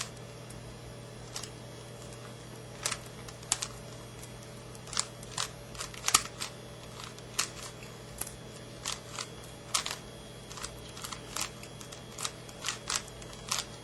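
Sharp plastic clicks and clacks of a worn, old Rubik's Cube being twisted by hand, coming irregularly, sometimes in quick pairs or clusters, over a steady low hum.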